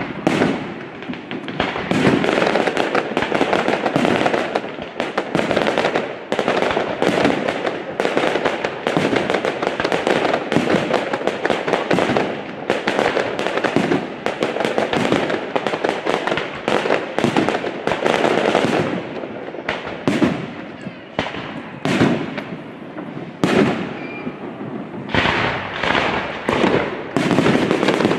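Fireworks display: a dense, continuous run of bangs and crackles, several a second, thinning a little about twenty seconds in before picking up again near the end.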